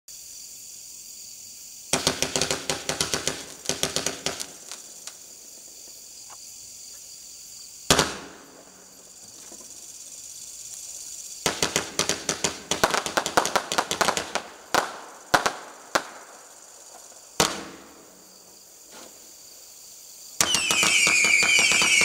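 A 57-shot firework cake firing. It gives two runs of rapid sharp crackling, with a single loud bang between them and another after the second run. Near the end a loud, dense whistling of many gliding pitches begins.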